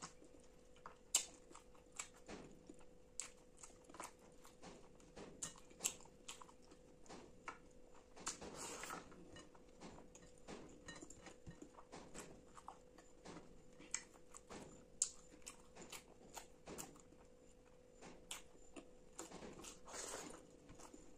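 Close-miked eating with the hands: fingers squishing and mixing rice and chana masala on a steel plate, with chewing and lip smacks. The sound is made of many sharp clicks, with longer squelchy stretches about 8 seconds in and near the end, over a faint steady hum.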